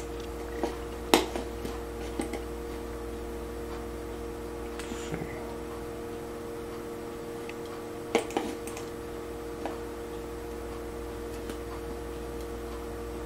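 A handful of sharp computer mouse clicks over a steady hum: the loudest about a second in, and a close pair about eight seconds in.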